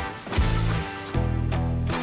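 Instrumental background music with sustained bass notes and drum hits.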